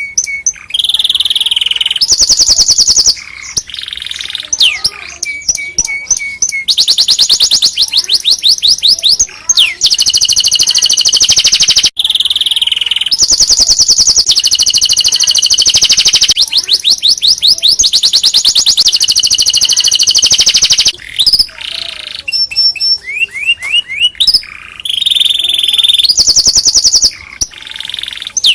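Domestic canary singing a long song of loud, rapid trills and rolls, switching between phrases every second or two. The song is played for other canaries to learn from.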